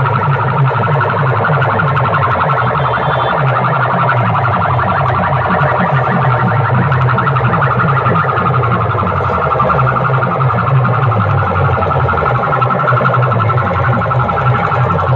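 Music played very loudly through a competition DJ rig's horn loudspeakers, with a fast, pounding repeated bass beat and a harsh, alarm-like electronic tone over it.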